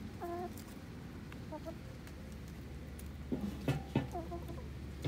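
Domestic hens clucking as they feed: a few short, separate clucks. A couple of sharp knocks about three and a half to four seconds in are the loudest sounds.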